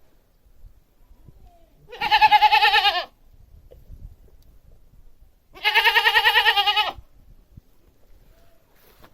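Domestic goat bleating twice, each call about a second long with a quavering, wavering pitch.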